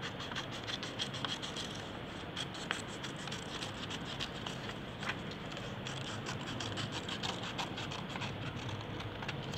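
Scissors cutting through paper along a curve: a quick series of small snips, coming in runs with short pauses between.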